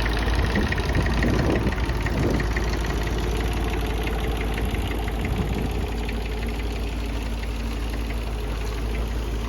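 Perkins P3 three-cylinder diesel engine in a Ford Ferguson 9N tractor, running steadily.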